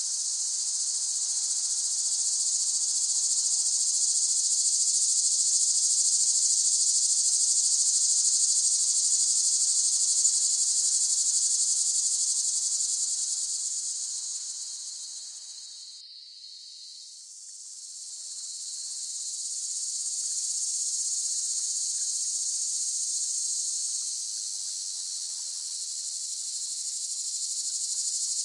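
Cicadas singing, a dense, steady high-pitched buzz. The chorus fades down about halfway through, almost dies away for a moment, then swells back up to full strength.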